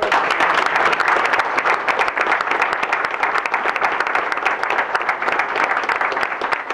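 Audience applauding: many hands clapping in a dense, steady run that thins a little near the end.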